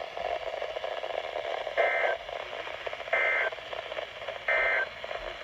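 Emergency Alert System end-of-message signal: three short bursts of two-tone digital data, each about a third of a second long and about a second and a half apart, over steady radio hiss. The bursts mark the end of the warning broadcast.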